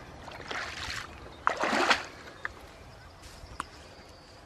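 Shallow water splashing where a grass carp has just been released, with the loudest, fuller splash about one and a half seconds in.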